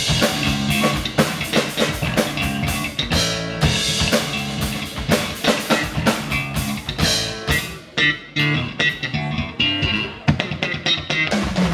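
Live band of Yamaha keyboard, Pearl drum kit and electric bass guitar playing an instrumental piece, with busy drumming throughout. A low note slides downward near the end.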